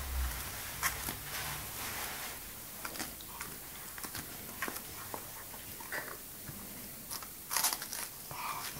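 Cocker spaniel biting and crunching into a cabbage held in a hand: irregular crisp crunches, with a louder cluster of bites near the end.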